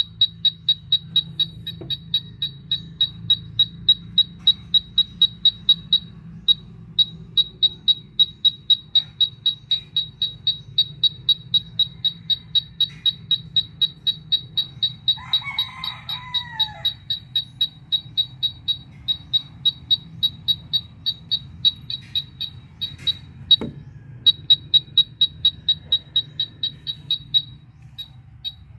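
UNI-T UT387E wall scanner beeping in metal-scanning mode: short high beeps, about three a second, pausing briefly twice. A bird calls once in the middle.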